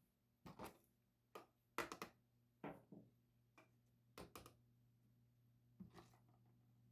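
Scattered light clicks and taps from handling small metal caliper parts, some in quick pairs and triples, over a faint steady low hum.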